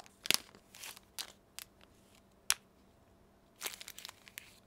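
Thin clear plastic bags crinkling as they are handled and opened, in scattered short crackles and clicks.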